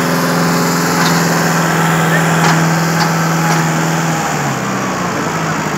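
Kubota MU-series tractor's diesel engine running at steady high revs while hitched to a disc harrow. Its pitch drops a little about four seconds in, and a few faint clicks are heard.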